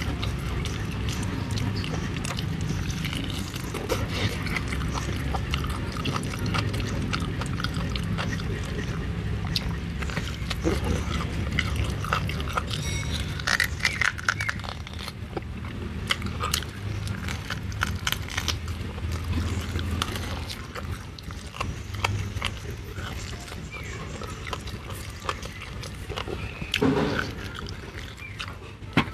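Close-miked chewing and lip-smacking of a person eating boiled chicken off the bone, many irregular wet clicks and smacks over a steady low rumble.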